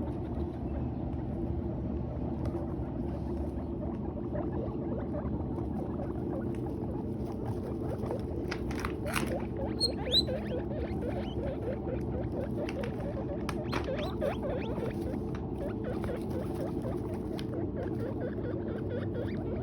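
Guinea pigs chewing hay, a busy run of small dry crunching and rustling clicks over a steady low hum, with a couple of short high squeaks about halfway through.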